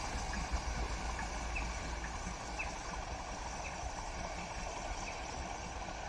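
Steam locomotive working away with its train of coaches: a steady rush of steam and a low rumble, with short high chirps every second or so.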